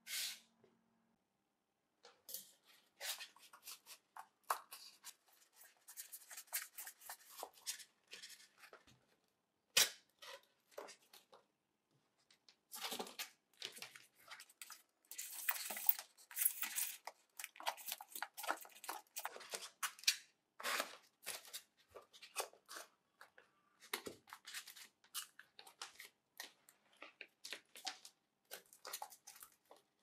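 Hands handling and pressing white polystyrene foam boards on a cutting mat, with irregular scratchy crunches, scrapes and light taps, and one sharp click about ten seconds in.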